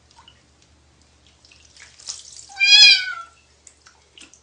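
A domestic cat being bathed meows once, loudly, about two and a half seconds in. Light splashing of water comes just before the meow, and a few small drips and splashes follow.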